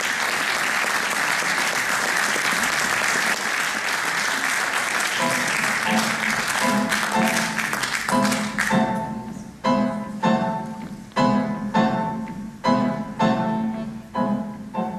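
Audience applause, with the accordion and piano already starting their first notes beneath it about five seconds in; the applause cuts off sharply a little past halfway. An accordion and grand piano duo then plays short, accented chords in a steady pulse.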